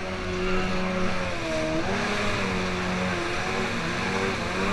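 Kawasaki 550 jet ski's two-stroke engine running at speed, its pitch wavering up and down, over a steady rush of water spray and wind.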